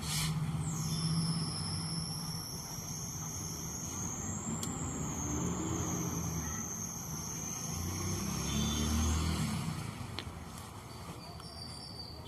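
Background traffic noise, with a vehicle rumbling past near the end, and a high thin whine held for about eight seconds.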